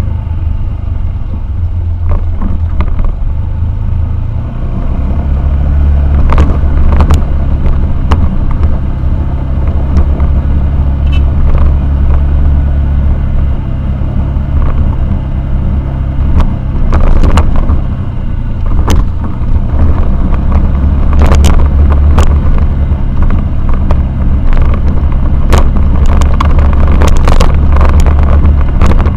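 A vehicle running, with a loud low rumble and scattered knocks.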